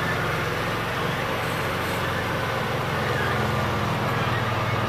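Engine of an open trail vehicle running steadily as it carries riders slowly uphill: a low, even engine hum with road and movement noise over it, the note shifting slightly about four seconds in.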